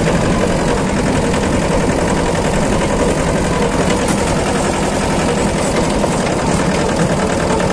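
Mahindra Jivo 245 DI 4WD mini tractor's two-cylinder diesel engine running steadily, under way in third gear, with wind rushing over the microphone.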